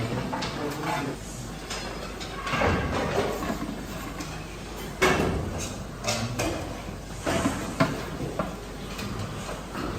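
Irregular knocks, scrapes and clatter of bakery work over a steady low hum, with the sharpest knock about five seconds in.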